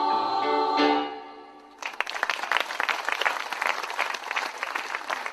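A choir holds a sung chord that stops about a second in and fades away. After a short pause, the audience breaks into applause that carries on.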